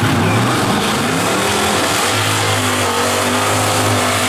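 Drag car doing a burnout: the engine revs up and is held at high revs while the rear tyres spin and smoke on the pavement.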